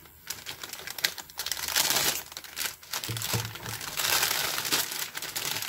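Clear plastic polybag crinkling as hands handle it and work plastic model-kit runners out of it: a crackly rustle of many small ticks, soft at first and louder after about a second and a half.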